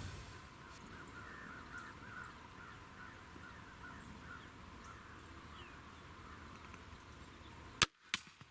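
Faint woods ambience with a bird calling a quick run of short, repeated notes through the first half. Near the end come two sharp cracks about a third of a second apart: a bow shot at a deer, the string's release and then the arrow striking.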